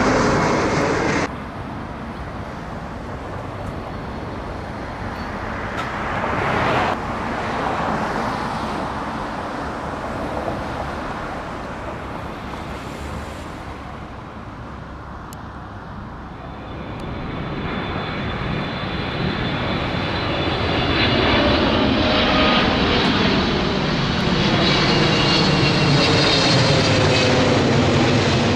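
Jet aircraft passing low overhead: engine noise building over the second half to its loudest near the end, with high whining tones above the steady roar. A louder sound cuts off abruptly about a second in.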